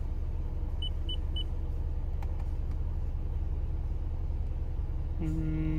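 Three short high beeps from the Honda Civic's head unit about a second in, as its power button is pressed, over a steady low rumble. Near the end a steady low tone begins.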